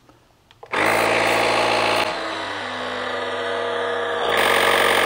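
AUXITO A501 portable tire inflator's compressor running, pumping up an e-bike tire through a Schrader valve. It starts about a second in, drops to a lower, quieter note about two seconds in, and gets louder and brighter again near the end.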